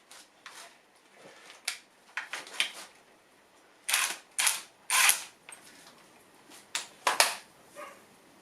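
Metal parts and bolts being handled and fitted while a gearbox mounting bracket is reassembled: irregular clicks and clinks, with a few short, louder scrapes around the middle.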